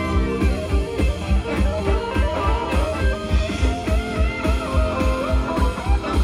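Live swing band playing an instrumental passage, guitar prominent over a steady bass and drum beat.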